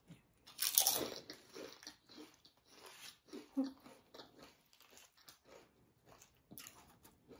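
Close-up eating sounds: potato chips crunched and chewed, with one loud crunchy bite about half a second in and a run of smaller, irregular crunches after it.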